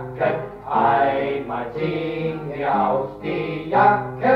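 A group of men singing a German song together, heard from an old reel-to-reel tape recording.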